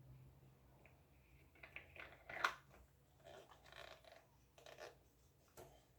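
Faint handling noises of parts being fitted together during fan assembly: scattered light clicks and rustles, with one sharper click about two and a half seconds in.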